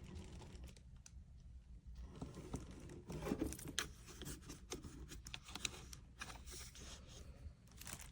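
Irregular rustling, scraping and light clicks of things being handled, over a low steady hum.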